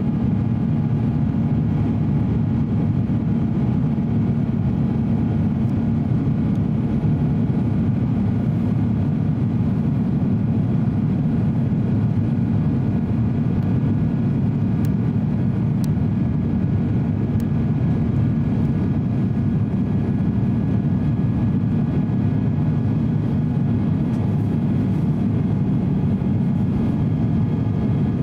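Steady cabin noise inside an Airbus A350-900 in flight: a low, even drone of its Rolls-Royce Trent XWB engines and airflow over the fuselage, with faint steady hum tones above it.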